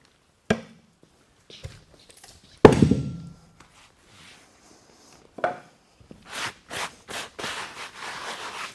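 Heavy wooden thunks as a large timber block is handled and stood on end, the loudest about three seconds in with a short dull ring. From about six seconds in come quick rubbing, scraping strokes, a few a second.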